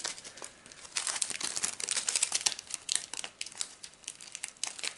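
Small plastic bags and a sticker-label sheet crinkling and rustling as they are handled, in quick irregular crackles. There is a quieter spell a little past three seconds in.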